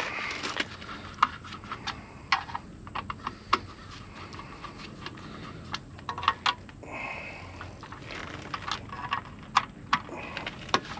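Irregular small clicks and scrapes of a screwdriver working the ground lug screws, with wires being handled inside an AC service disconnect box.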